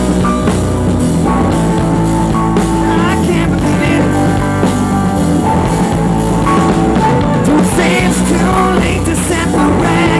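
Live band playing a pop-rock song loudly, with drum kit, guitar and a singer's vocal over a steady instrumental bed.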